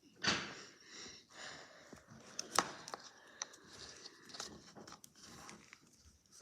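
Hands squeezing and tearing apart a lump of Play-Doh, soft squishing and rustling with a few sharp clicks.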